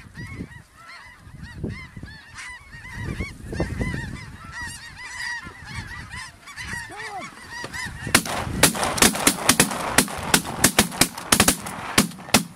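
A large flock of snow geese calling overhead, a dense chorus of high, rising-and-falling honks. About eight seconds in, a rapid volley of shotgun blasts from several hunters breaks out, four or five shots a second, far louder than the calling.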